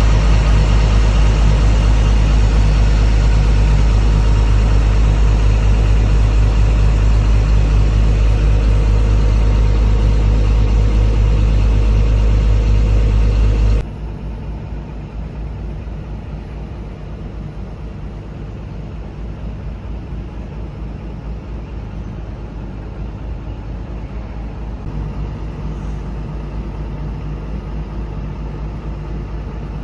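Komatsu PC230-8 excavator's diesel engine running steadily with a low, even hum. About halfway through the sound drops sharply and carries on quieter.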